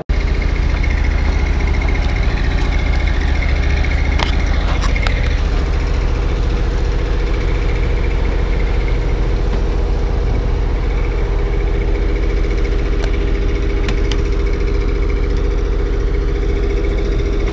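Steady, loud machine hum beside a parked McDonnell Douglas MD-82 airliner on the apron: a heavy low rumble with a steady whine over it, and a few light clicks.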